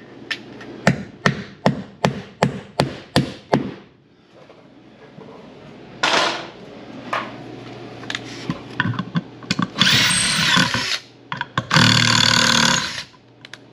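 Claw hammer driving nails through a metal F&J ceiling molding into a wooden backer board: about nine sharp strikes in quick succession over the first four seconds. Later come two harsh scraping stretches, each about a second long.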